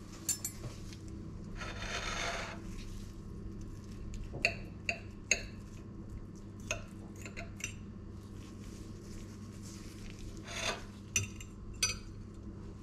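Metal knife and fork cutting potato patties on a ceramic plate: two longer scrapes across the plate and several sharp, ringing clinks of cutlery on china, over a steady low hum.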